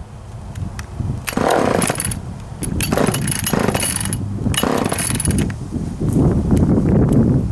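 Vintage Homelite two-stroke chainsaw running, revving up in several bursts with dips between them, then running steadily and loudly from about six seconds in.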